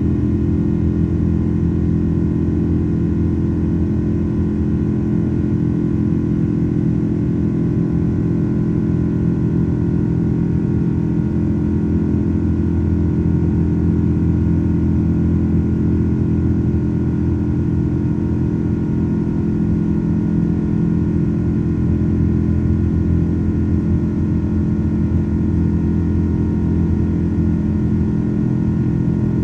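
Pratt & Whitney PW4077 turbofans of a Boeing 777-200 at climb thrust, heard inside the cabin. They make a steady drone built from many held tones: the buzzsaw of the fan.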